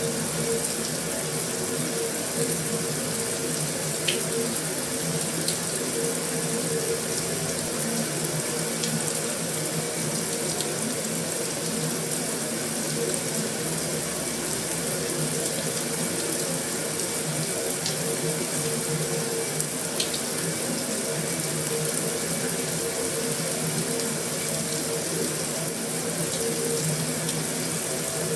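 Heavy rain falling steadily on a metal roof: an even, unbroken hiss with an occasional sharper tick of a drop.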